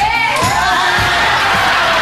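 A high, wavering shriek, then a group cheering and screaming over background music.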